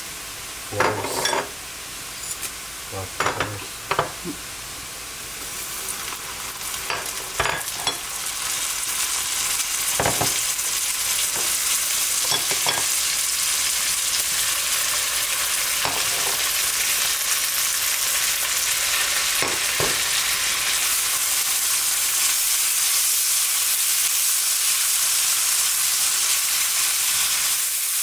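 Onions and whole spices frying in hot oil in a pot, sizzling. A few knocks and taps come in the first eight seconds as the spices go in and are stirred, then the sizzle swells and holds steady.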